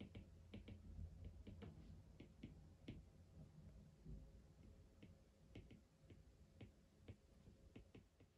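Near silence with faint, irregular light clicks and taps, more frequent in the first few seconds, over a low steady hum.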